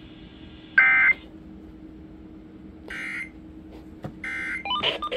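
Emergency Alert System end-of-message data bursts: three short, harsh digital buzzes of two-tone data, the first much louder than the other two, signalling that the alert is over. A faint steady hum runs under them, and station audio starts right at the end.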